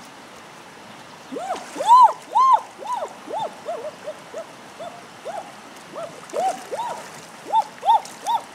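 Hands plunging and scooping through shallow muddy water, making irregular hollow plopping, gurgling sounds about two a second, over the steady rush of a stream.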